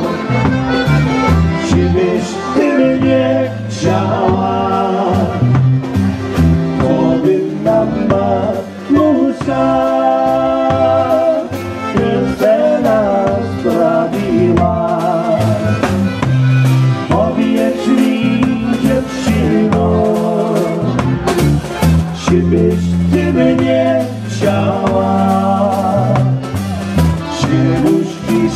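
Live polka band playing a waltz on concertina, saxophone, electric bass and drums.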